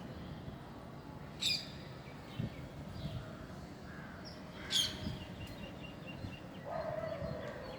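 Parrots calling: two short, shrill screeches about three seconds apart, then a lower, longer call near the end.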